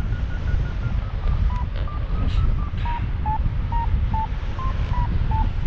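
Paragliding variometer giving its climb tone: short beeps, quicker and higher-pitched at first, then slowing and dropping in pitch as the lift weakens. Heavy wind noise on the microphone from the airflow in flight.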